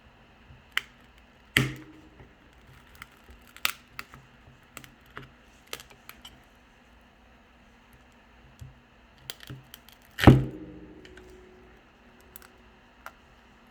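Small metal repair tools clicking and tapping against a smartphone's frame and back glass while the fingerprint sensor is worked free. Two louder knocks come about a second and a half in and about ten seconds in; the second is the loudest and rings briefly.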